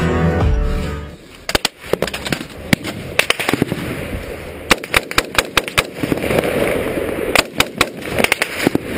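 Music cuts out about a second in, then gunfire: irregular rifle shots, some single and some in quick clusters of two to four, as a firefight goes on.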